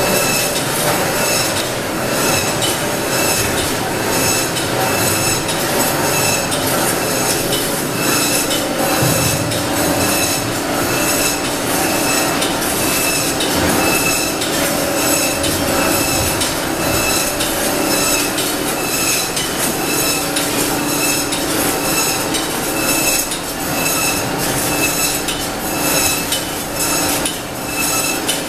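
Automatic poultry cut-up line running: the overhead shackle conveyor and cutting machines make a loud, continuous metallic clatter with regular clicking and a short high-pitched note recurring about once a second. A steady hum joins about eight seconds in.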